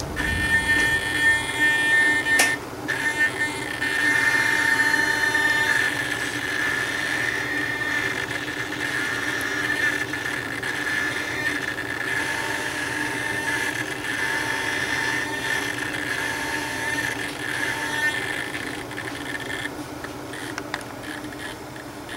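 GE XL Go videoscope's probe-articulation motors whining as the camera tip is steered with the joystick; the high whine starts and stops with the stick movements, over a steady low hum from the unit. A sharp click comes about two and a half seconds in.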